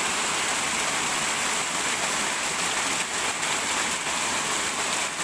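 Small rocky stream rushing and tumbling over a little cascade, a steady even water noise.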